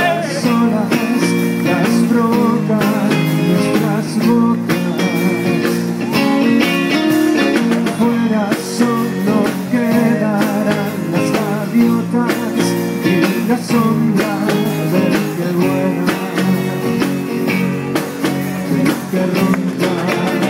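Background music: a song with a steady beat.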